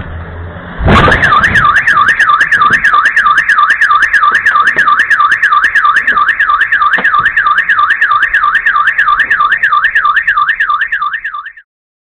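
A car strikes a parked car with a sudden thud, setting off a car alarm that wails in a fast up-and-down warble, about four sweeps a second, until it cuts off suddenly near the end.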